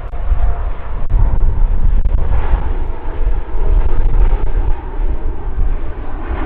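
Boeing 787-9's twin turbofan engines at takeoff thrust as the jet rotates and lifts off: a loud, steady roar with a deep rumble underneath.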